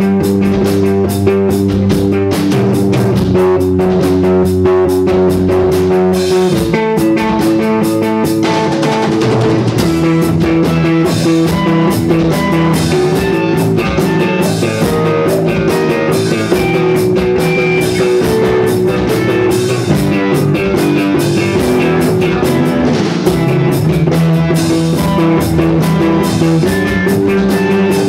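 Rock music played on guitar and drum kit, with sustained notes over a steady beat.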